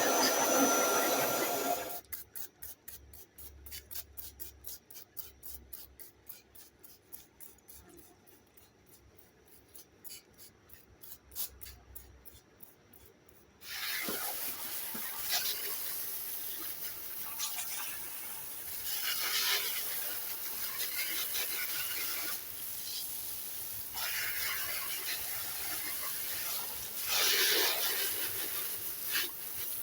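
A Kirby vacuum, run as an air blower, cuts off about two seconds in. Faint rapid clicking follows, and then, from about halfway through, repeated rubbing and scraping swells of cleaning work on the air conditioner.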